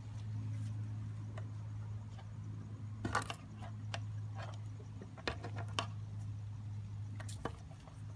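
A steady low hum, with a handful of light clicks and taps scattered through it as the wiring and alligator clips of an ignition test rig are handled.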